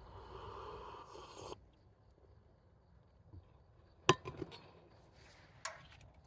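A rustling hiss for about a second and a half, then a sharp clack about four seconds in followed by a few lighter clicks, and one more click near the end.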